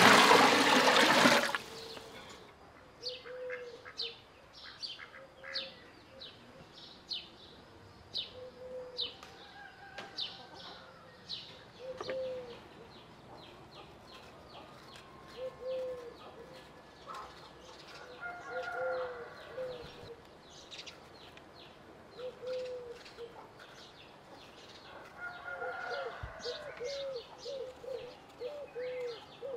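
A loud rush of water stops about a second and a half in. Then birds call: quick high chirps throughout, and a lower call repeated every couple of seconds that comes in a fast run near the end.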